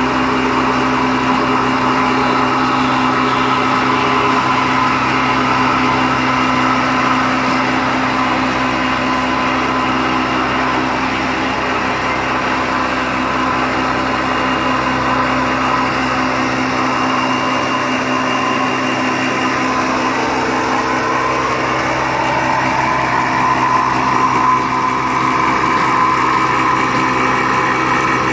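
M40 millet milling machine running steadily while milling millet, a constant mechanical hum with a steady whine over it.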